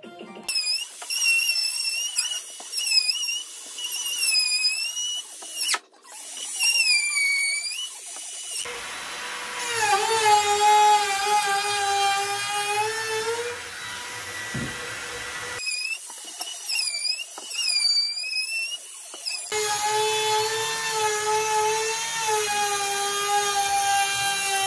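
Cordless quarter-inch router running and cutting into the wall's panel framing, its whine dipping in pitch and recovering again and again as the bit takes load. Spells of this alternate with a lower, steadier whine, with a brief stop about six seconds in.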